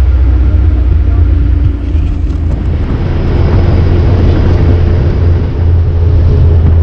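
Jeep engine running as the jeep drives along, a steady heavy low rumble.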